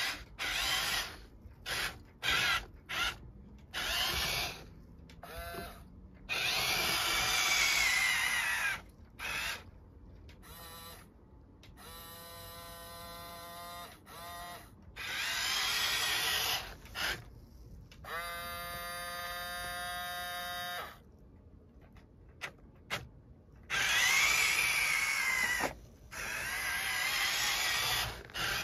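Electric motors and gearboxes of a radio-controlled toy wheel loader whining in stop-start bursts as it drives and works its bucket. Some bursts are short; a few last two or three seconds, their pitch rising and falling with speed, and two stretches hold a steadier, even whine.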